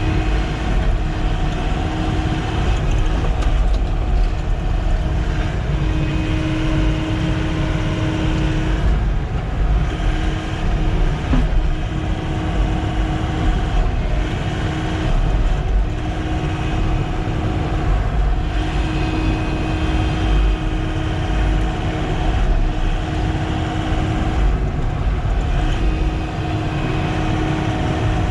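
Sany SY-95 excavator's diesel engine running under steady load while it works, with a hydraulic whine that comes and goes as the controls are worked.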